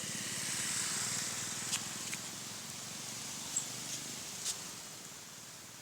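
A vehicle engine's low pulsing rumble that swells about a second in and then fades away, with a few short sharp clicks over it.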